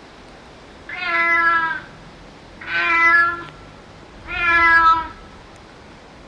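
Recorded domestic cat meowing, played back by an animal-sounds app: three meows, each just under a second long, about a second and a half apart.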